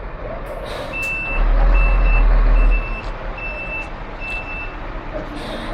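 Truck reversing alarm beeping at one high pitch, a series of uneven beeps from about a second in until near the end, over the truck's running diesel engine; a loud low rumble swells for about a second and a half in the middle.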